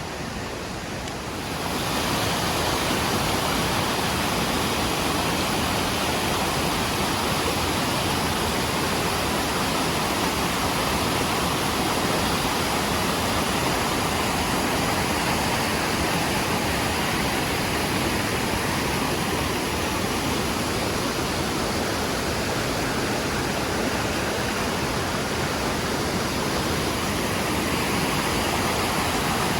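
Small creek waterfall rushing steadily: an even, dense hiss of falling water that grows louder about two seconds in, then holds.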